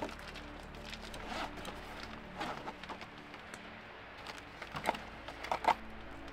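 Handling sounds from a tailgate camp kitchen: scattered light clicks and knocks as food and a seasoning shaker are picked up and set down, the sharpest knocks near the end. Faint background music runs underneath.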